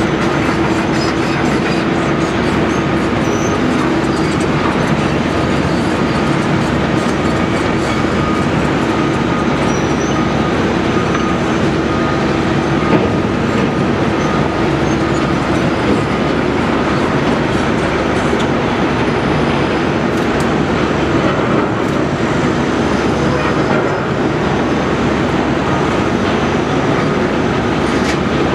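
Steady diesel and hydraulic din of a Link-Belt 330LX tracked excavator digging and moving dirt, with a steady whine and scattered faint clanks of machinery working.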